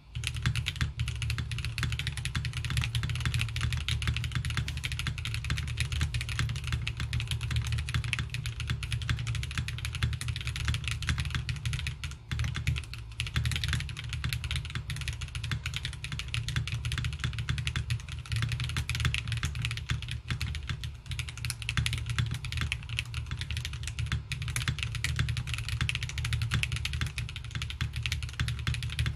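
Continuous fast typing on a gasket-mounted QK80 mechanical keyboard with stock Kailh BCP switches on an FR4 plate and Ranked 9009 keycaps. The keystrokes are muted and thumpy, with plasticky-sounding topouts. There is a brief pause about twelve seconds in.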